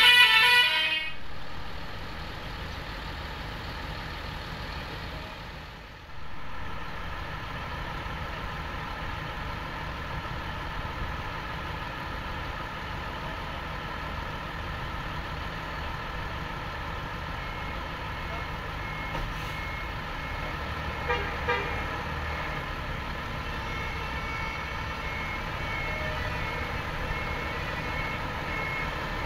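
Coach bus's diesel engine running as the bus pulls out of its bay, with a steady low rumble and a whine. A horn sounds and cuts off about a second in, and from a little past halfway a short high beep repeats at even spacing, like a reversing warning.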